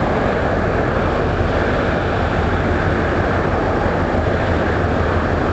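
Steady, loud vehicle engine noise with a deep hum that does not change.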